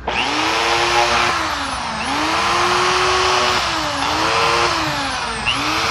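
Bosch corded impact drill's motor running in reverse on test after a repair to its reverse switch, starting abruptly at full speed. Its whine sags and picks back up about three times.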